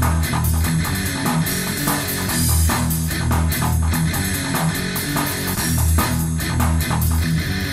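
Rock music with guitar, bass and drums, a steady beat.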